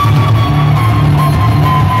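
Live folk-punk band playing loud and amplified: a fiddle holds one long high note that slowly slides down in pitch over electric guitar and bass.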